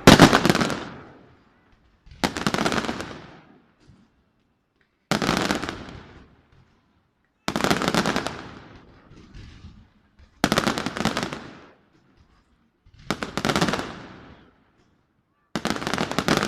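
Fireworks going off in a series of seven bursts about two and a half seconds apart, each a sharp bang followed by rapid crackling that fades over about a second.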